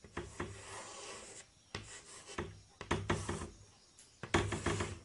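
Chalk scraping on a chalkboard in four separate strokes as lines and a small circle are drawn.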